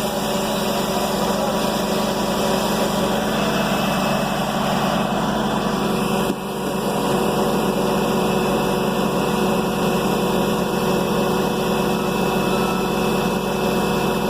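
An engine running steadily at an even speed, with a brief dip in level about six seconds in.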